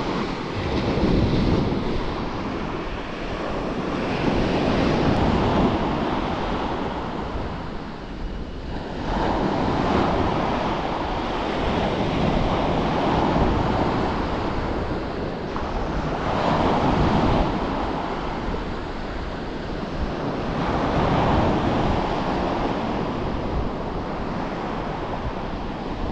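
Small surf waves breaking and washing up a stony beach, swelling and fading about every four seconds, with wind buffeting the microphone.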